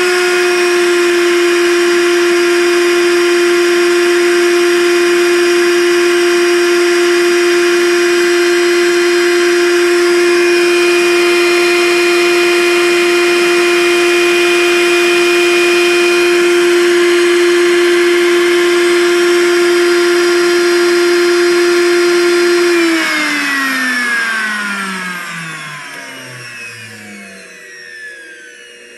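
Blendtec Designer 625 blender motor base running empty with no jar fitted, a loud steady high-speed whine. About 23 seconds in the motor shuts off and coasts down, its whine falling steadily in pitch and fading over about four seconds.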